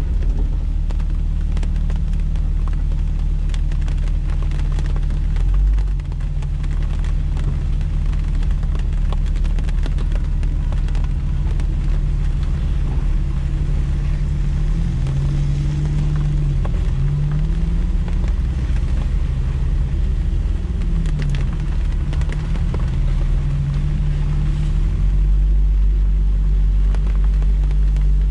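Jeep Wrangler TJ engine running off-road, a steady low rumble with the revs rising and falling several times midway through.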